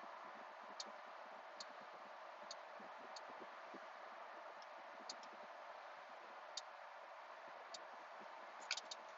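Near silence: a faint steady hiss with about ten short, sharp ticks at uneven intervals, a close cluster of them near the end.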